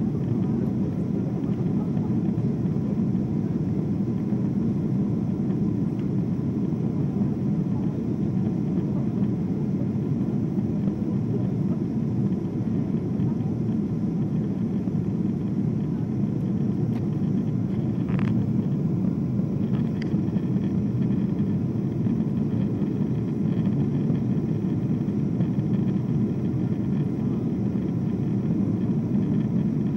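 Steady low rumble of a Boeing 747-8's engines and rushing air, heard inside the cabin during the climb after takeoff.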